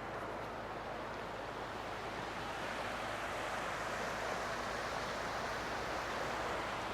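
Steady rushing noise with no distinct events, getting a little louder about halfway through.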